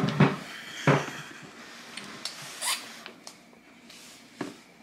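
A few sharp knocks and clicks of things being handled, loudest near the start and about a second in, with a short rising squeak about halfway through.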